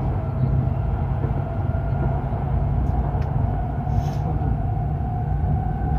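Hokuriku Shinkansen train heard from inside the cabin while running at speed: a steady low rumble with a whine that rises slowly in pitch. A couple of light clicks come about three to four seconds in.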